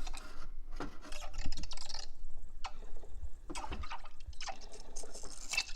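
Breville Barista Express (BES870XL) steam wand sputtering and spitting in irregular bursts over a low rumble from the machine, as it builds up enough steam pressure to start steaming.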